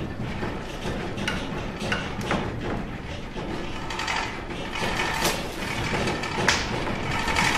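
Building creaking and rattling as the room shakes in an earthquake, with many sharp clicks and ticks over a constant rustling clatter. It grows louder about four seconds in.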